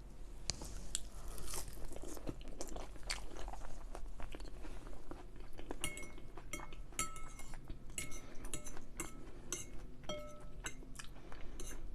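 Close-up chewing and crunching of food. From about halfway through, metal cutlery clinks repeatedly against a dish, each clink ringing briefly.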